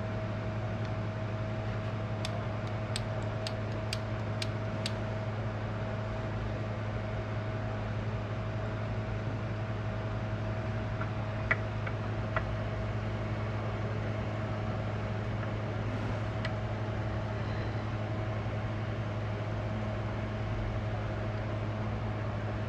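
A steady low machine hum, with a quick run of about six light ticks a few seconds in and a couple of sharper clicks around the middle.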